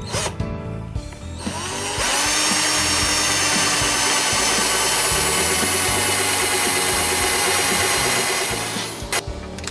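Power drill spinning up about a second and a half in, then running steadily into a cedar fence-board top for about seven seconds before stopping.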